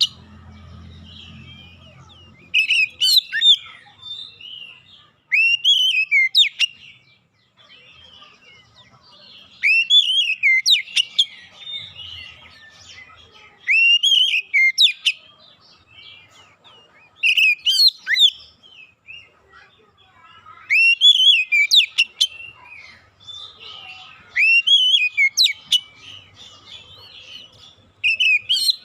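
Oriental magpie-robin (kacer) song: a loud whistled phrase sliding up and down, repeated about every three to four seconds, with softer twittering between the phrases.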